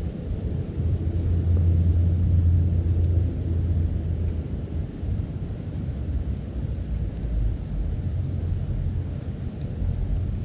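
Wood fire burning in a small titanium wood stove, with a steady low rumble and a few faint sharp crackles a few seconds apart.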